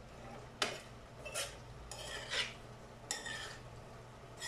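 Spatula scraping and stirring food in a non-stick frying pan: about five separate scrapes roughly a second apart, the first the sharpest, over a steady low hum.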